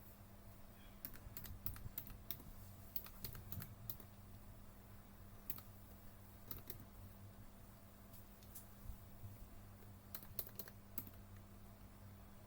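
Push buttons on an escape-room button box being pressed one after another: a series of sharp clicks in quick clusters with pauses between, over a faint steady hum.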